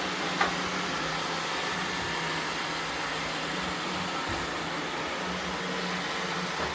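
Roomba robot vacuums running steadily: a whir of motors and brushes with a low hum that comes and goes. A sharp click about half a second in.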